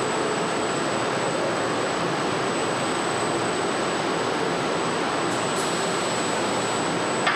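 Steady machinery noise of an automated electric-motor stator production line: an even rushing hiss with a constant thin high whine, and a couple of faint clicks about five and a half seconds in.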